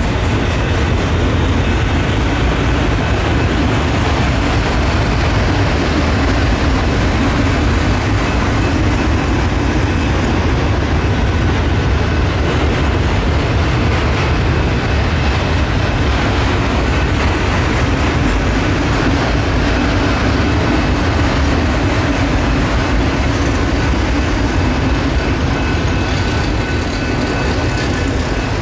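Freight train of enclosed autorack cars rolling past close by: the steady, loud noise of steel wheels running on the rails, with faint thin high ringing tones held above it.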